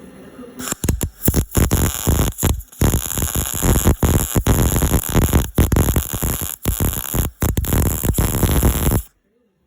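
Welding arc crackling and sizzling while a nut is welded onto a broken bolt stub for extraction, with many short breaks in the arc; it starts about a second in and cuts off suddenly near the end.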